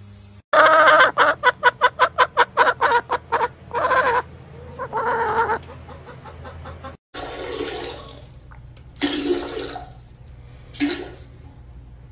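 Hen clucking in a quick run of about five clucks a second, then two longer drawn-out calls. After a cut, a second-long rush of noise and a few short noisy bursts follow.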